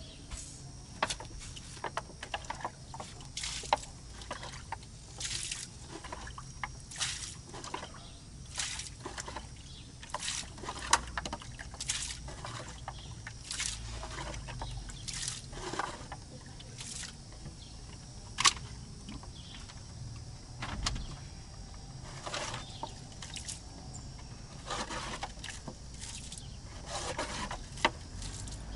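Rainwater that has leaked into a car being scooped up with a container and tipped out: a series of irregular splashes and pours.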